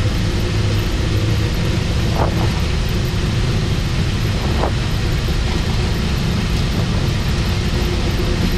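Boeing 737 on its takeoff roll, heard from the cockpit: steady loud engine and airflow noise over a low rumble from the runway.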